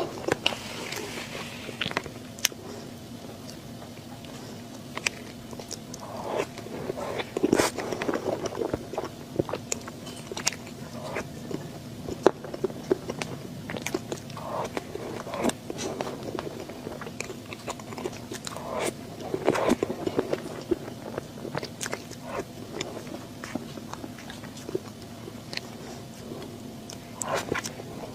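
A person eating cake close to the microphone: irregular bites and wet chewing with sharp mouth clicks, in clusters every few seconds.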